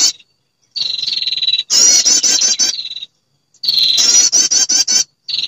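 Recorded call of a female perenjak (prinia) played as a bird lure. Loud bursts alternate between a buzzy, slightly falling note and a fast rattling trill of repeated notes, each burst starting and cutting off abruptly, as in a looped track.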